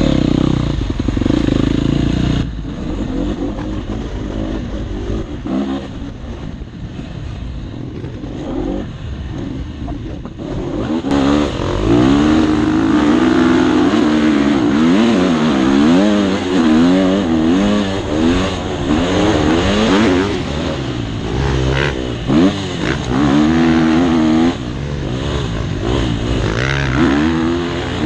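Motocross bike engine heard from on board. It runs at low revs for the first ten seconds or so, then from about eleven seconds in it is revved hard, its pitch climbing and dropping over and over as the bike is ridden flat out around the track.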